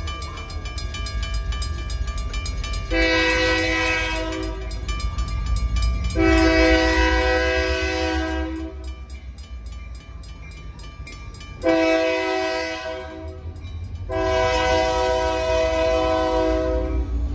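Union Pacific diesel locomotive's air horn sounding the grade-crossing pattern, a chord of several tones: two long blasts, a short one, then a long one that runs on. Under it the crossing's mechanical bells ring steadily and the approaching locomotive's engine rumbles low.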